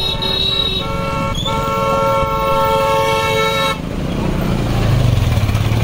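Vehicle horn: two short toots, then one long blast of about two seconds that cuts off. After it a vehicle engine runs close by, getting louder near the end.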